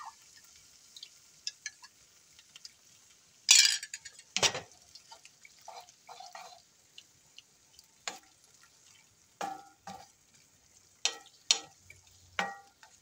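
Wooden spatula stirring and scraping through mushrooms and gravy in a cast-iron skillet, in short separate strokes, the loudest about three and a half seconds in. Underneath, a faint steady sizzle from the pan.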